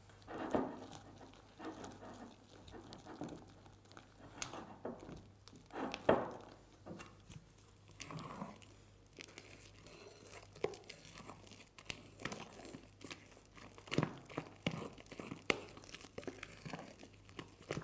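Fluffy slime of glue and shaving foam being stirred with a spatula in a glass bowl, then squeezed and pulled by hand: irregular squelching and crackling. Sharper clicks and pops come more often in the second half.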